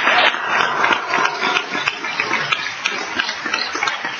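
Audience applause, the clapping thinning out and getting quieter as it dies away.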